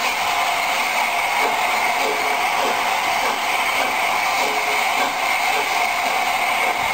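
Electric model train running past on the track: a steady mechanical whir from its motor and gears, with light irregular ticking from the wheels over the rails.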